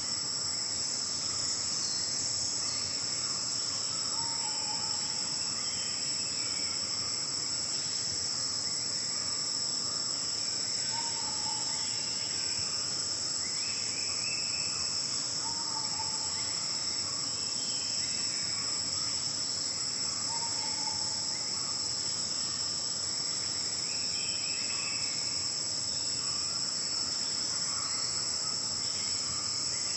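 Steady, high-pitched chorus of forest insects such as crickets, continuous and unvarying. Over it, a short low call sounds four times, spaced several seconds apart, with other faint bird calls now and then.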